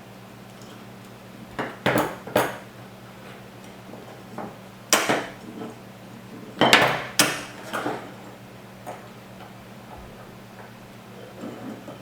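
Metal printer-frame parts being handled: sharp clinks and knocks of hardware against aluminium extrusion, in small clusters about two, five and seven seconds in, over a faint steady hum.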